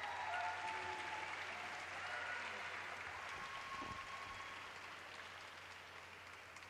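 Audience applauding, the clapping fading gradually.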